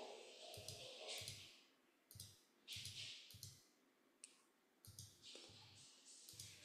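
Faint computer mouse clicks, a string of separate clicks at uneven intervals.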